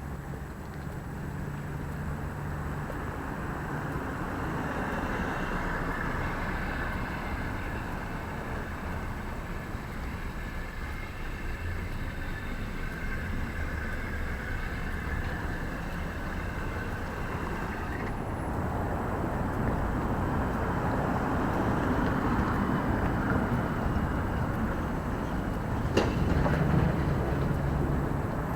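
Street traffic: vehicles running past in a steady wash of engine and tyre noise, with one sharp click near the end.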